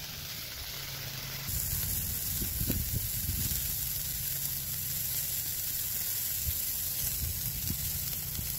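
Ćevapi (skinless minced-meat sausages) sizzling on a hot grill grate, a steady hiss that grows louder about a second and a half in.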